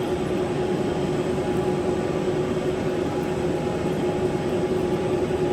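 1525F3 CNC vertical turning lathe running, its main drive turning the table with a steady mechanical hum and a constant tone.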